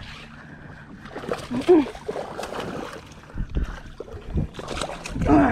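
A hooked bass being fought up to a kayak: water splashing and a few low thumps, with a brief wordless vocal sound from the angler about a second and a half in.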